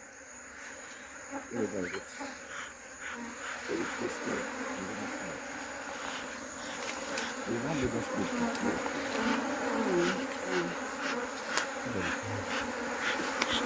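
A crowd of African honeybees buzzing around an opened hive, with single bees whizzing close by, their pitch rising and falling as they pass. The buzzing grows louder over the first half.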